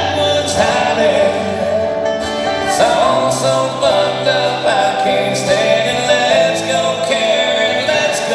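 Live acoustic country music played on two acoustic guitars and a guitar held flat on the lap and played with a slide.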